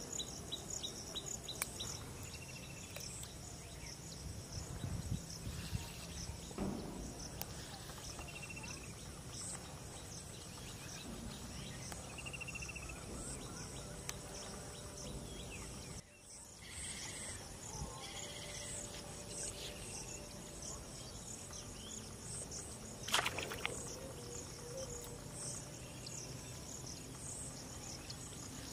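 Pondside insects trilling steadily, with a short chirping call repeating every three seconds or so. A single sharp clatter comes about three quarters of the way through.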